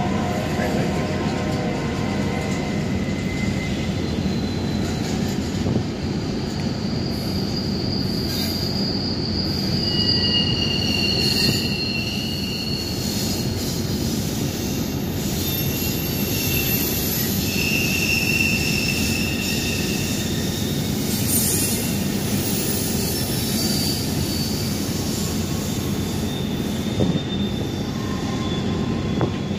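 Norfolk Southern double-stack intermodal freight train rolling past: a steady rumble of wheels on rail, with high wheel squeals that come and go for a few seconds at a time.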